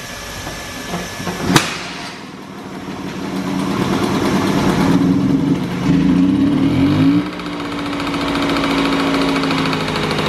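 A sharp knock, then the Vespa V50's 50 cc two-stroke single-cylinder engine catches a couple of seconds in and runs, its revs climbing, dropping back to a steady idle about seven seconds in, and picking up again near the end. This is the first start of the freshly rebuilt engine, set up with the original 55 main jet.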